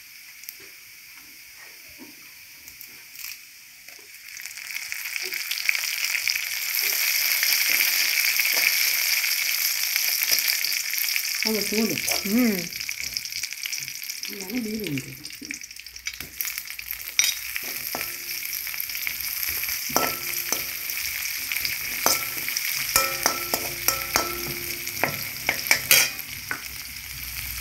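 Coconut oil sizzling in an aluminium wok with mustard seeds and garlic; the sizzle surges about four seconds in as dried red chillies and curry leaves go into the hot oil. In the second half a slotted metal spoon stirs and scrapes against the wok with many sharp clicks while the frying goes on.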